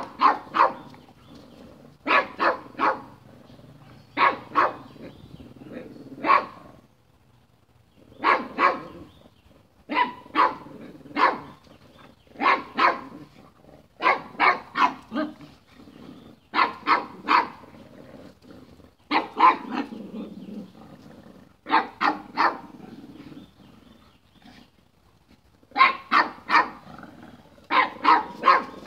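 Dogs barking in play, in quick bursts of two to four sharp barks every couple of seconds, with short lulls between some bursts.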